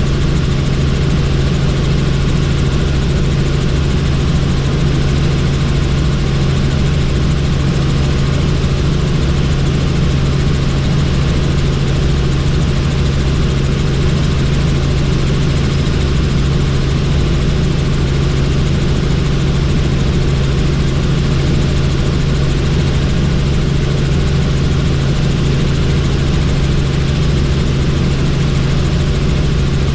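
Helicopter in flight: a steady, unbroken drone of engine and rotors with a strong low hum.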